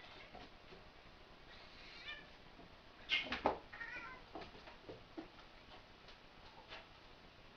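A ginger domestic cat's short meowing calls, one about two seconds in and another about four seconds in, with a few sharp knocks just before the second call.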